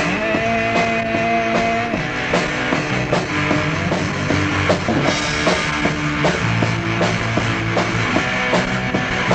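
Instrumental passage of a rock song: electric guitar holding chords over a steady drum-kit beat, with no singing.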